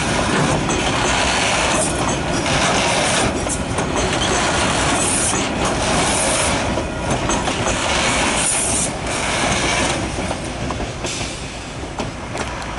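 Freight wagons rolling past close by, their steel wheels running on the rails with a high hiss and squeal that comes and goes every second or two. The noise drops near the end as the last wagon goes by.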